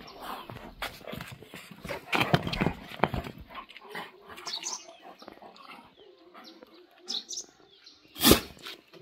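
Two dogs, a Gaddi sheepdog and a Tibetan mastiff, play-fighting: irregular scuffling and dog noises, loudest about two seconds in, with one sharp loud burst near the end.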